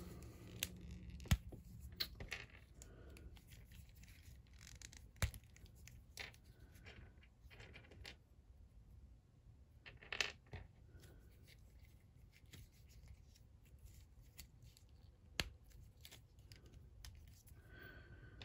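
Faint handling of a plastic Marvel Legends action figure: scattered sharp clicks and taps a few seconds apart as its hands are pulled off the wrist pegs and swapped, with a short scrape about ten seconds in.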